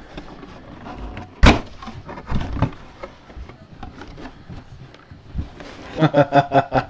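Cardboard mini-helmet box being opened by hand: one sharp knock about a second and a half in, then scattered rustles and light knocks of cardboard and packaging as the box is pulled open and its flap lifted off the helmet's plastic case.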